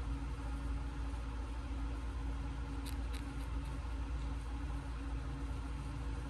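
Steady electric hum of a small motor or appliance, with a couple of faint clicks about three seconds in.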